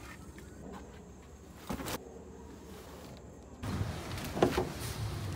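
Upholstered foam cushions being pushed and slid into the cargo area of a minivan. There is a single knock about two seconds in, then rubbing and shuffling of the cushions against each other and the van from about four seconds in.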